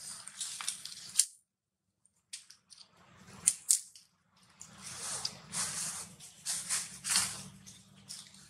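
Macaque eating a piece of fruit: irregular wet, crackly chewing and munching. The sound drops out completely for about a second near the start.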